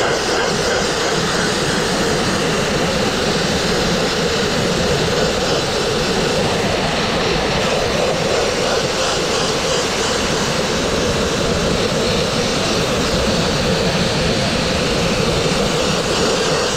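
Dustless blasting nozzle jetting a steady stream of compressed air and water at a brick wall with the abrasive shut off, rinsing the blasted surface: a constant loud hiss.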